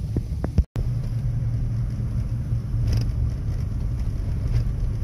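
A car driving along, a steady low rumble of engine and road noise. The sound cuts out for an instant just under a second in.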